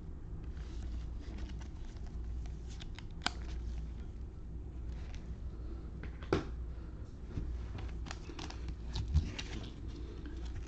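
Trading cards and packaging being handled: scattered light clicks and rustles, with two sharper taps, one about three seconds in and one about six seconds in, over a low steady hum.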